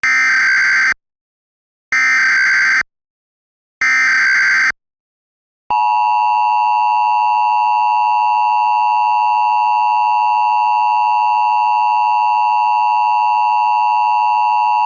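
Emergency Alert System SAME header: three one-second bursts of digital data tones about two seconds apart. About six seconds in, the EAS attention signal follows, a steady two-tone beep (853 and 960 Hz) that holds and announces an incoming emergency message.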